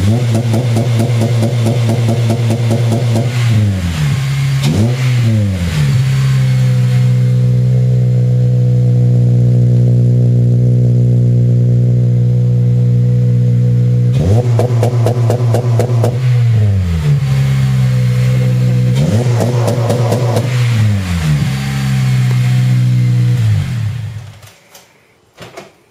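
2008 Honda Civic Si's 2.0-litre four-cylinder engine, through a GReddy Ti-C exhaust, held at its 3500 rpm launch-control rev limit: a loud, steady drone. Several stretches of rapid stuttering crackle come from the limiter cutting in, and three times the revs dip and climb back. The engine note falls away near the end.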